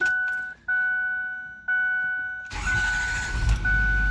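A steady electronic warning tone sounds, broken twice briefly. About two and a half seconds in, the starter cranks and the 2008 Ford F-250's 6.4 L turbo-diesel V8 catches and keeps running, now that air has been purged from its fuel system.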